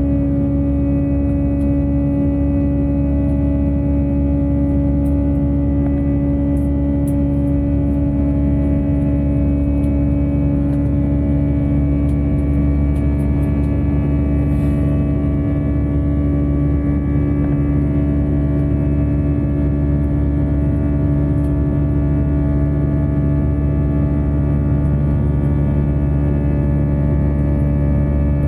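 Airbus A321-200 passenger cabin during the climb: the jet engines' steady drone, a deep rumble with several fixed humming tones over it.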